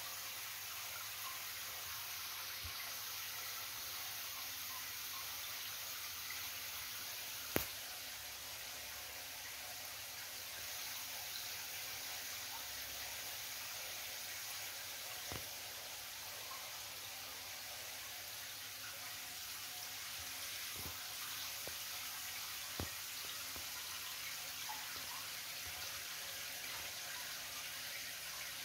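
Steady splashing and bubbling of water from aquarium aeration and filters. A sharp click about seven and a half seconds in, and a few fainter clicks later.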